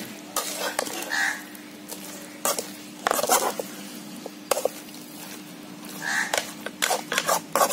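A slotted metal spatula scraping and knocking against a kadai while stirring chicken pieces in thick masala, keeping it from sticking to the bottom. The strokes come irregularly, a few at a time, and bunch together near the end.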